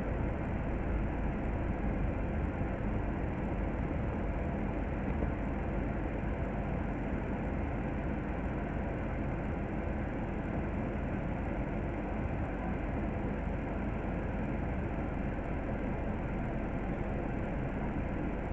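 Double-decker bus engine running, heard inside on the upper deck: a steady low rumble as the bus slows and then stands idling in traffic.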